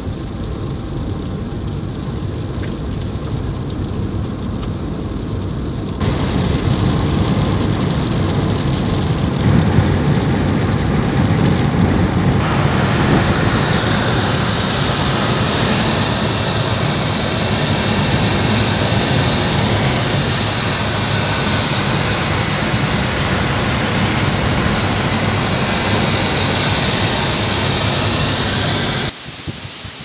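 Heavy rain with the road noise of a moving car, a loud steady hiss and rumble. It grows louder in two steps, about six and about twelve seconds in, and cuts off abruptly just before the end.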